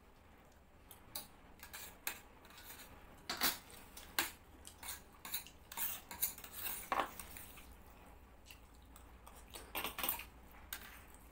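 Metal spoons clinking and scraping against stainless steel plates as two people scoop up dalia, in irregular clusters of sharp clicks, busiest over the first seven seconds and again briefly about ten seconds in.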